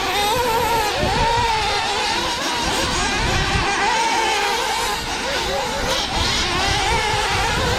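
Several radio-control race cars running together, their motors rising and falling in pitch as they accelerate and slow through the track.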